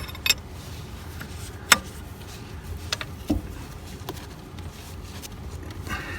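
Wrenches clicking and clinking on a metal hose fitting as it is snugged down: half a dozen separate sharp clicks, the loudest about a second and a half in, over a low steady hum.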